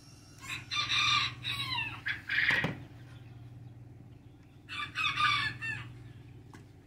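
Roosters crowing: a long crow starting about half a second in, and a second crow about five seconds in.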